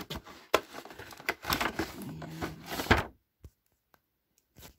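Handling of a boxed perfume gift set: cardboard and plastic packaging rustling and clicking in quick, irregular knocks for about three seconds, then quiet apart from one more click near the end.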